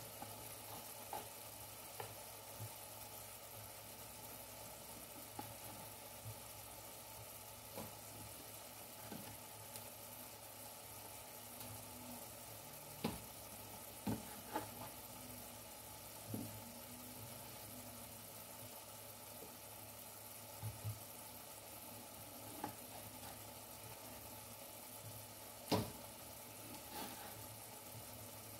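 Faint, steady sizzling of onion and tomato cooking slowly in a pan on the stove, with scattered knocks of a knife on a wooden cutting board as bread is cut into pieces; the loudest knocks come about halfway through and near the end.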